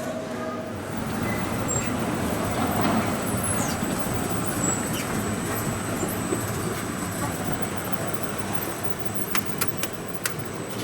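Steady rumble of a vehicle in motion, a little louder from about a second in. A few sharp rattling clicks come near the end.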